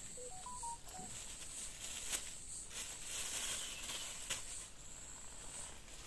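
Five short electronic beeps in quick succession about a second in, stepping up in pitch and then back down. Insects keep up a steady high-pitched buzz throughout, with a few faint clicks.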